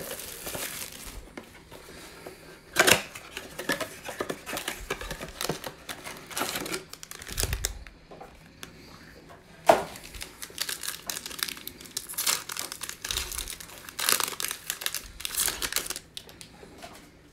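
Plastic shrink-wrap crinkling and tearing as it is pulled off a Prizm football blaster box, then the cardboard box flaps opened and the packs inside handled. Irregular crackling throughout, with sharp loud crackles about 3 and 10 seconds in.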